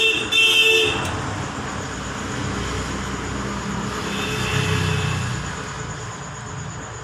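Background noise of passing motor traffic: a high, steady squeal-like tone that cuts off about a second in, then a low rumble that swells around four to five seconds in and fades.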